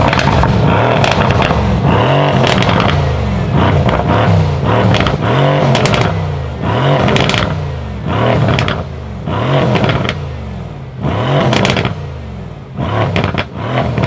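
Mercedes-AMG C63 S Estate with BRABUS 700 tuning, its twin-turbo V8 revved repeatedly while standing, in short blips roughly every second, with crackles and pops from the exhaust as each rev drops. The revs come further apart near the end.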